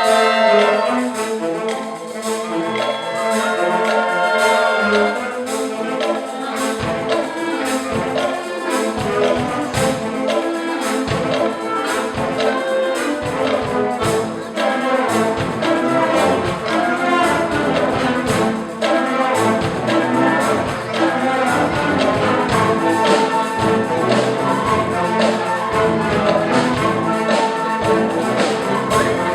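Orchestral-style music led by brass, with a steady beat joining about six seconds in.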